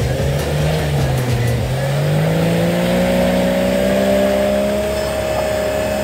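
Off-road 4x4's engine pulling under load. Its pitch dips briefly about a second in, then climbs slowly and holds high.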